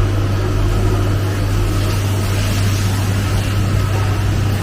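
Steady low machine hum with a constant drone from a CNC milling machine standing by. No cutting is heard yet.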